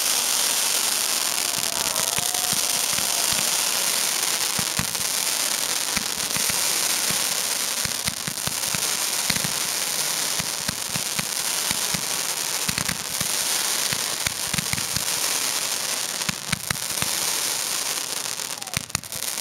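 Fireworks display: a dense, continuous crackle of many small sharp pops over a steady hiss, from rising comets and falling crackling stars, with thicker clusters of cracks partway through.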